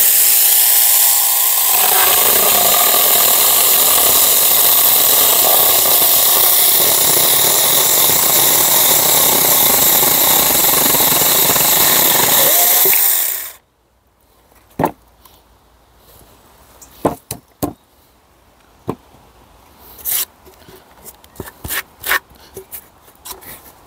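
A Saker mini cordless electric chainsaw starts at once and runs free for a moment. It then cuts through an old pallet board for about twelve seconds and stops abruptly. Afterwards there are a few scattered knocks of wood being handled.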